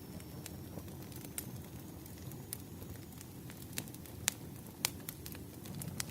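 Firewood fire crackling: irregular sharp pops and snaps over a soft low rumble, with the loudest pops a little over four seconds in and again near five seconds.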